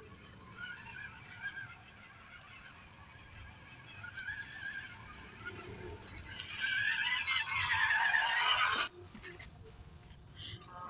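A small electric RC crawler truck's motor and gears whine as it climbs toward the microphone. The sound grows loud about two-thirds of the way through, then stops abruptly.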